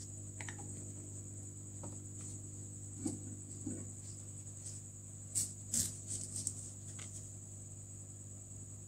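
Steady hum with a thin high whine from a hot air rework station running while it heats a phone's power IC, with a few light clicks and taps of tools on the board about three seconds in and again between five and seven seconds.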